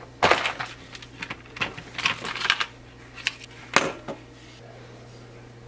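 Irregular clicks and clatters of a wood-burning kit being handled: the hard plastic case, its loose brass tips and the wood-burning pen knocking about, with a sharper knock about four seconds in, over a steady low hum.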